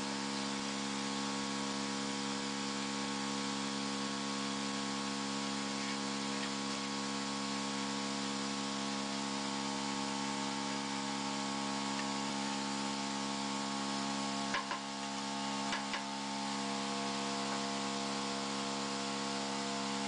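Steady electrical hum made of several fixed tones over a hiss, with a couple of light knocks about fifteen seconds in.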